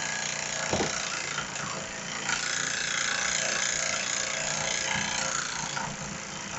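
Small homemade brass piston engine being spun by its electric starter motor, a steady mechanical clatter and whir, with one sharper knock about a second in. It is turning over without firing: the ignition is giving no spark.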